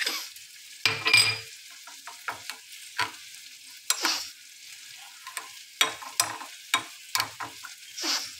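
Metal spoon stirring beaten eggs and chopped coriander in a glass bowl, clinking and scraping against the glass in irregular taps.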